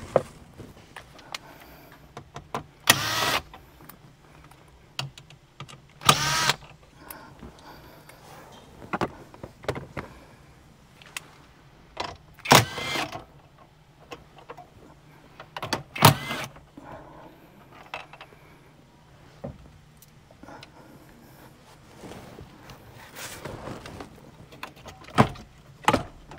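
Cordless power driver whirring in about five short bursts, each around half a second, as it backs out the bolts and screws holding a car's center display, with light clicks of handling between the bursts.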